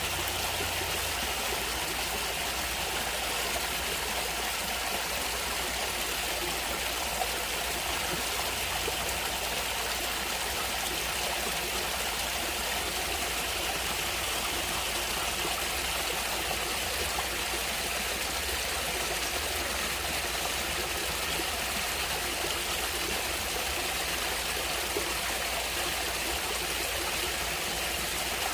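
Stream water flowing and splashing steadily, an even rush without pauses.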